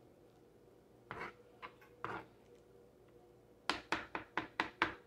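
Metal fork working through sticky dough in a pan: a few scrapes, then a quick run of about seven knocks near the end, the fork striking the pan.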